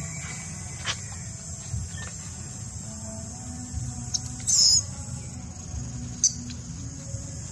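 Outdoor ambience: a steady, high-pitched insect drone with a low rumble beneath it. Short, sharp high chirps cut in about halfway through and again near the end.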